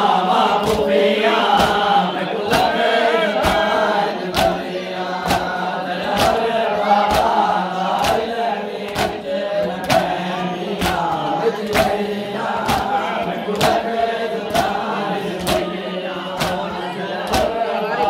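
Crowd of men chanting a noha, a Shia lament, in chorus while beating their chests (matam) in unison, the slaps landing about twice a second.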